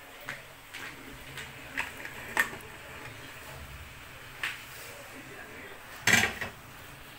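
Aluminium pressure-cooker lid being handled and lifted off the pot: a string of light metal clinks and knocks, with the loudest clatter near the end.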